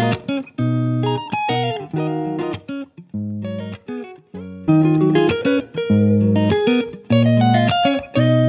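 Background music played on guitar: plucked notes in a steady rhythm over low bass notes.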